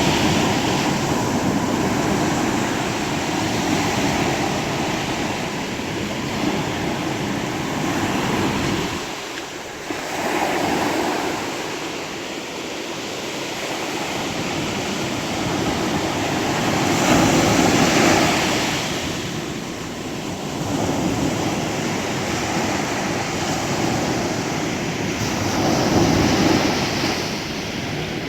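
Sea waves breaking and washing onto the shore, the surf swelling and ebbing every several seconds, with the loudest surge a little past halfway.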